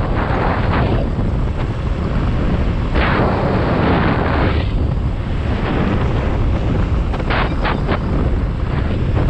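Wind buffeting the microphone of a camera on a moving motorcycle: a loud, steady rumble with stronger gusts about three seconds in and again near eight seconds.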